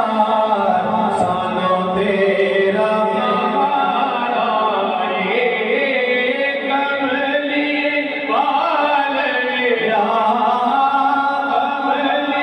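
A man singing a Punjabi naat unaccompanied, in long held lines with slow, ornamented bends in pitch.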